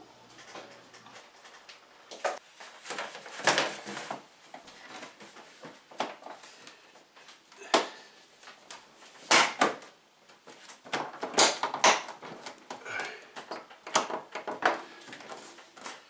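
Plastic back panel of a frost-free refrigerator's freezer compartment being fitted into place by hand: irregular knocks, clicks and scrapes of plastic against plastic.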